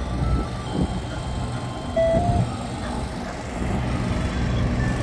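Street traffic: a vehicle engine running with a steady low hum, with a few short notes of a tinkling electronic jingle, clearest about two seconds in.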